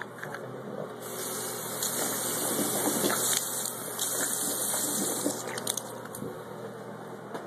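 Water running steadily into a basin, starting about a second in and stopping just before six seconds, with a few small knocks as it stops.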